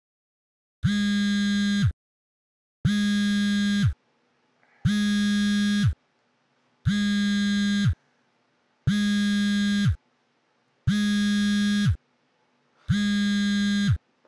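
Smartphone vibrating on a wooden floor for an incoming call: seven one-second buzzes, one every two seconds, each dropping slightly in pitch as it cuts off.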